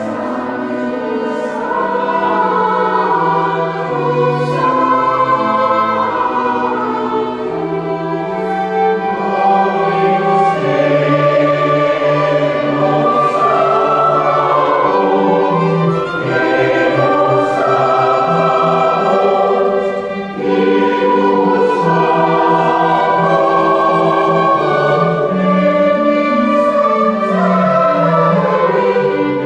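Church choir singing a movement of a Mass set to Christmas carols, accompanied by organ. The music runs on continuously, with a brief dip in loudness about two-thirds of the way through.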